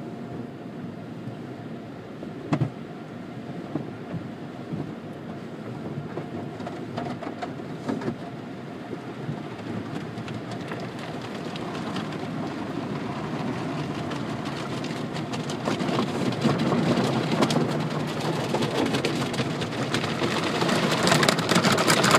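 Automatic car wash heard from inside the car: brushes and water spray swishing and drumming on the glass and body, with two short thumps in the first eight seconds. The spray grows louder over the second half.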